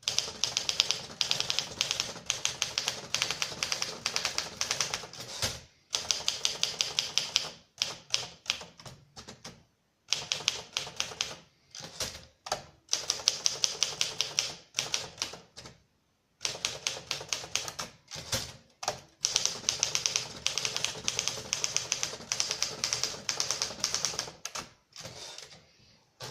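1956 Torpedo 18 portable manual typewriter being typed on: runs of quick key strikes lasting several seconds, broken by short pauses.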